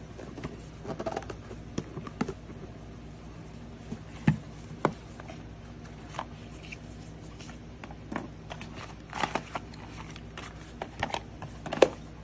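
A cardboard product box being handled and opened by hand: scattered taps, clicks and short rustles as the box is turned over on the table and its hinged flap lid lifted. A few sharper knocks stand out, the loudest near the end.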